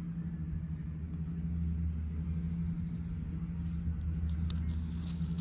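Steady low hum under light clicks and rustles of tarot cards being flipped over, the clicks coming in the last couple of seconds.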